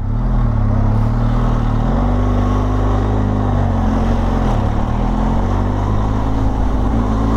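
Motorcycle engine running steadily under way, its note dipping and rising a few times with small throttle changes, over steady wind rush.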